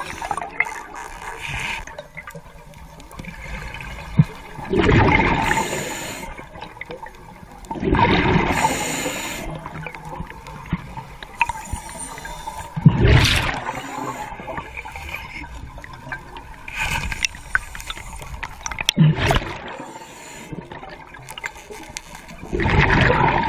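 A diver breathing underwater: exhaled air bubbles rush and gurgle past the microphone in bursts every few seconds, with quieter hiss between.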